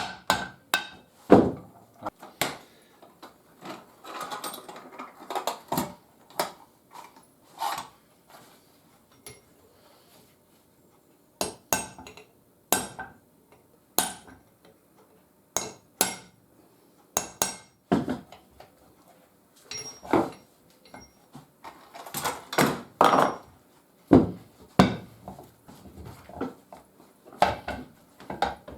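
Metal parts of a Record No. 3 bench vice being handled and dismantled, with irregular sharp clanks and knocks of metal on metal and a brief quiet spell near the middle.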